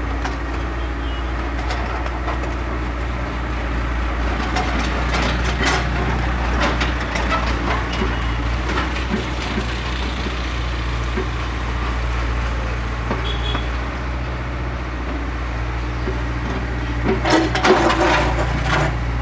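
Excavator's diesel engine running steadily, with bursts of clattering knocks about five seconds in and again near the end.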